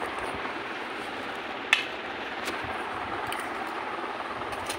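A metal spoon stirring chopped raw mango and spice powder in a stainless steel bowl, with a sharp clink of spoon on bowl a little under two seconds in and a few fainter clinks after, over a steady hiss.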